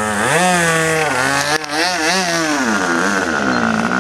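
Small model-aircraft engine with its propeller running at high revs, the pitch rising and falling several times as the throttle is worked, with a brief dip about a second and a half in.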